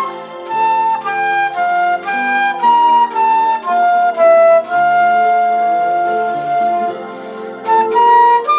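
Instrumental background music: a slow melody of single notes over accompanying chords, with one long held note about five seconds in.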